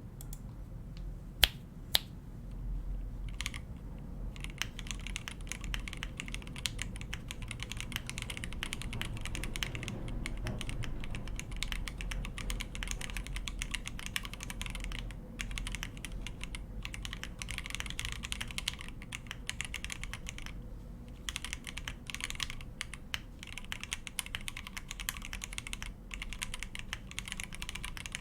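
Typing on an Akko MOD005 mechanical keyboard with stock, unlubed Akko Demon switches on an FR4 plate and Akko Psittacus keycaps. A few separate keystrokes come first, two of them sharp and loud, then steady fast typing from about four seconds in.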